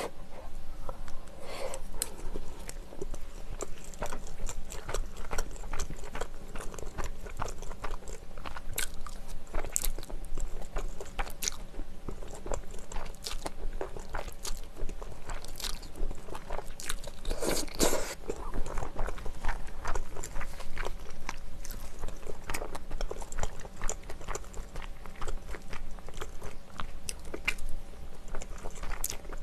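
A person chewing and biting mouthfuls of rice and spicy mala stir-fry close to the microphone, with many small wet clicks and smacks of the mouth.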